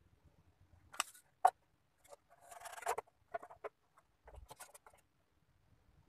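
Small plywood bird box being handled and turned over on a table: a few sharp wooden knocks, the loudest about one and a half seconds in, then a short scrape and a run of light taps.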